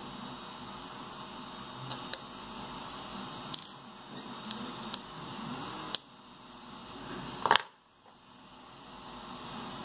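Small clicks and taps of plastic parts, screws and a screwdriver being handled during hand assembly, over a steady hiss, with one much louder clack about three quarters of the way through.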